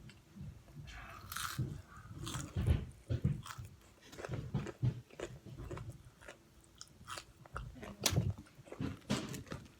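A person biting and chewing crunchy Popeyes food close to the microphone: many short, irregular crunches.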